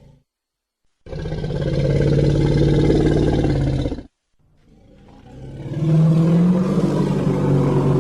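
Monster growl sound effects, one after another: a loud, low growl of about three seconds starts abruptly after a second of silence and cuts off suddenly, then after a short gap a second low growl swells in and carries on, its pitch bending up and back down.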